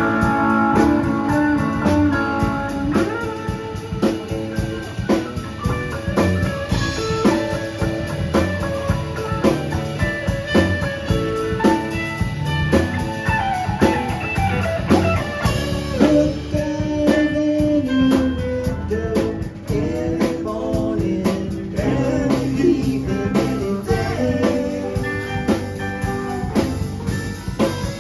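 Live rock band playing: electric guitars, bass, drums and keyboards together at a steady beat.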